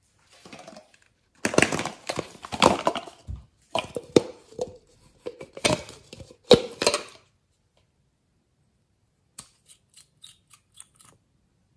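Crackling, crinkling plastic as a clear plastic container of green clay is squeezed and handled. Near the end comes a quick run of small clicks as the cap of a nail polish bottle is twisted open.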